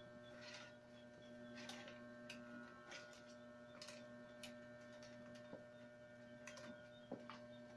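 Faint, irregular ticks and rustles of wicker strands being threaded and pressed by hand into a round basket's woven base, over a steady electrical hum.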